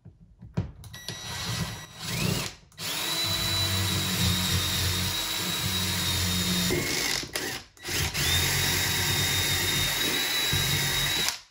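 Cordless drill pre-drilling pilot holes for lag bolts through a microwave mounting bracket into the wall. A few short uneven starts come first, then two long steady runs at speed with a high whine, one at each hole, separated by a brief stop about eight seconds in.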